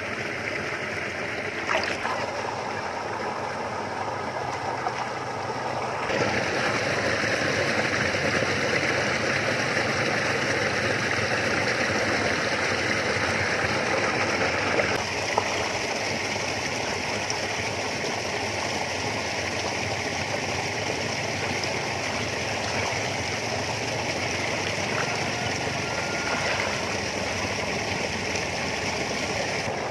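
Steady water noise: splashing and sloshing in shallow lake water from a hooked fish thrashing and being handled. The sound changes abruptly about six seconds in and again around fifteen seconds in.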